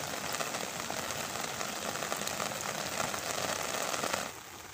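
Heavy rain falling, a dense steady hiss of drops that turns suddenly quieter about four seconds in.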